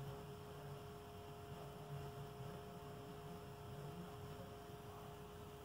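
Quiet room tone: a faint steady electrical hum over a low hiss.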